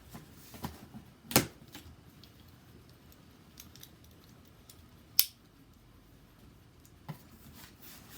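A cardboard shipping box being handled and opened, with a few sharp clicks and snaps, the two loudest about a second and a half and five seconds in.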